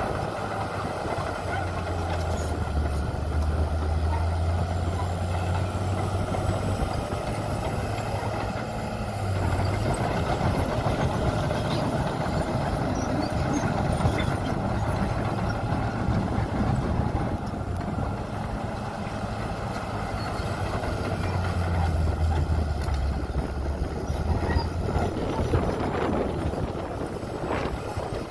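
Diesel engines of heavy earthmoving machinery, a bulldozer and dump trucks, running with a deep steady hum that swells twice under load and eases back in between.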